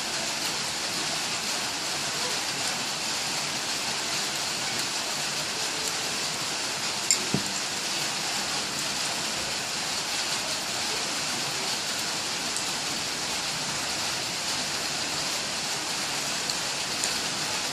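Steady rain-like hiss, with two short clicks about seven seconds in.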